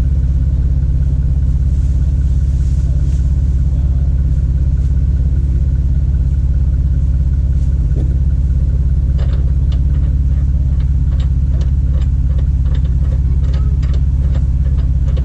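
A motor vehicle's engine running steadily with a loud, low, even hum. From about nine seconds in, scattered short clicks and knocks come over it.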